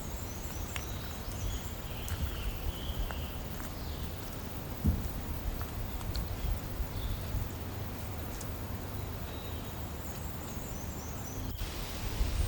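Small birds chirping in short repeated phrases over a steady low rumble, with a few light clicks.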